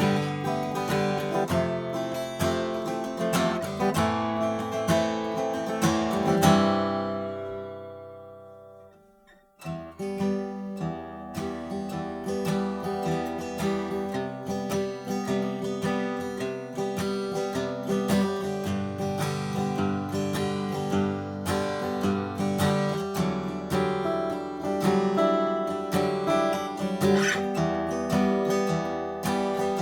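Martin D-1 Authentic 1931, a 12-fret mahogany dreadnought acoustic guitar, played solo with strummed chords and picked notes. About six seconds in a chord is left to ring and fades away over about three seconds before the playing starts again.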